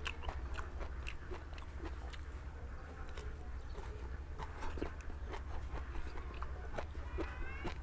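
Close-miked chewing of stir-fried bamboo shoots: soft crunching with many small wet mouth clicks and smacks.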